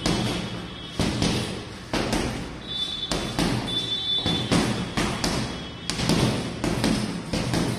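Boxing gloves punching a hanging leather heavy bag: about a dozen heavy thuds in irregular combinations, roughly one or two a second, each with a short echo from the room.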